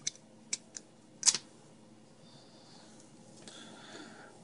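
A few small, sharp plastic clicks and taps, the loudest about a second in: the two halves of an optical mouse's plastic shell being handled and fitted back together.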